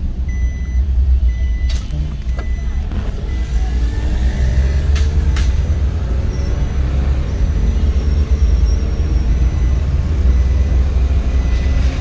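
Car driving, heard from inside the cabin: a steady low engine and road rumble, with a faint high beep repeating in short on-off dashes.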